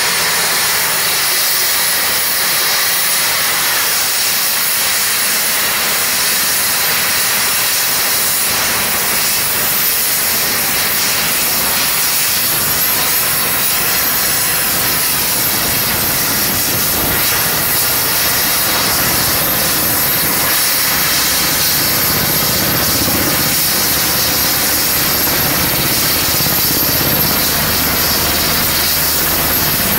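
MH-60S Seahawk helicopter's twin turboshaft engines running: a steady, loud rushing hiss with a thin high whine that climbs slightly in pitch.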